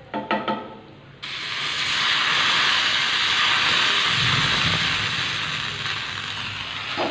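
Two quick clinks of the small frying pan against the pot, then, about a second in, a sudden loud sizzle as hot ghee with fried cashews and raisins hits the hot payasam, fading slowly; another clink near the end.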